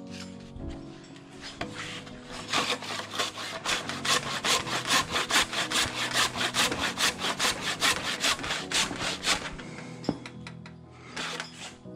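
Hand saw cutting through a wooden 4x6 post with quick back-and-forth strokes, about four a second, finishing a notch at the back that the circular saw's curved blade could not reach. The strokes grow louder after a couple of seconds and ease off near the end.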